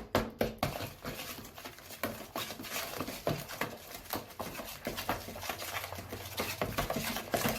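Wooden spoon stirring a thick batter of creamed sugar, margarine and egg in a bowl: a run of quick, irregular knocks and wet scraping against the bowl.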